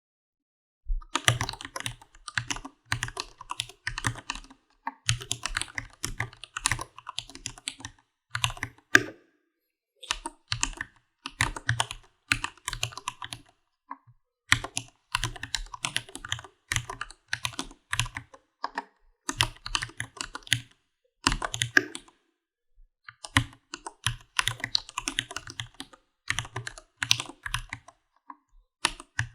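Computer keyboard being typed on: rapid keystrokes in runs of several seconds, broken by short pauses, each keystroke a sharp click with a low knock beneath it.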